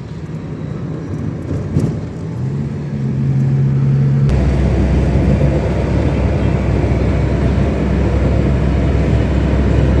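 A car driving, heard from inside: engine hum and road rumble, the engine tone rising a few seconds in. About four seconds in it changes suddenly to a louder, deeper, steady rumble.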